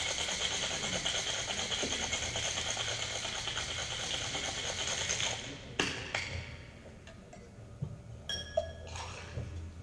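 Ice rattling hard inside a Boston shaker, a metal tin over a mixing glass, as a cocktail is shaken vigorously for about five seconds before the shaking stops. A sharp knock follows about a second later, then a few light metal and glass clinks.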